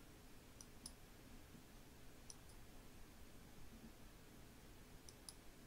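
Near silence: low room hum with three pairs of faint, sharp computer mouse clicks, near the start, about two seconds in and near the end.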